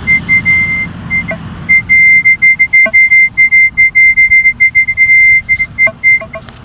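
Minelab E-Trac metal detector sounding a high single-pitch tone that keeps cutting in and out, with a break about a second in. It is falsing because its Pro search coil has gone out.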